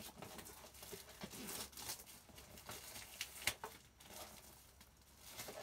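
Faint crinkling and tearing of clear plastic wrap being pulled off a cardboard cookie box, with scattered light clicks and rustles and a sharper snap about three and a half seconds in.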